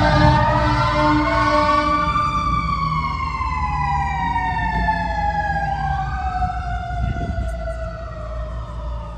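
Emergency vehicle sirens wailing, at least two at different pitches, each rising and falling slowly, with one starting a new rise about six seconds in. A low steady rumble runs underneath.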